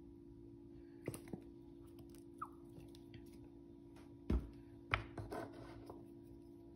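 A steady low hum, with a few light clicks and then two dull knocks about half a second apart, followed by brief rustling: things being handled and set down on a kitchen counter.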